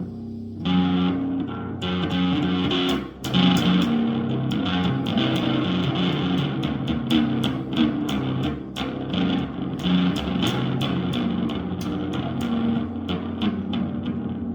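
Bass guitar played freestyle as noise-making, not a tune: held low notes under a dense run of sharp, metallic string clicks and strikes that start about two seconds in.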